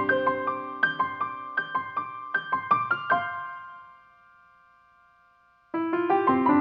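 Easy-listening background piano music playing a run of notes, fading out about three seconds in, then a few seconds of quiet before the piano comes back in near the end.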